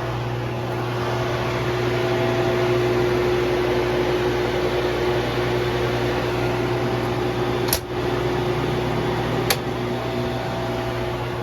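Haas VF2 CNC milling machine powered up and running idle: a steady motor hum and fan whir. Two sharp clicks come about eight and nine and a half seconds in.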